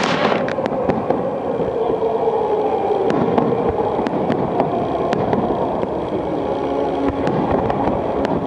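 Fireworks display: scattered sharp crackles and pops over a continuous rumbling din.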